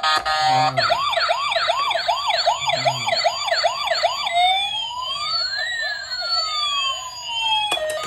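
Toy police car's electronic siren: a short steady tone, then a fast yelp of rapid rising sweeps, about three a second, changing about halfway through to a slower wail that rises and falls, and cutting off with a click near the end.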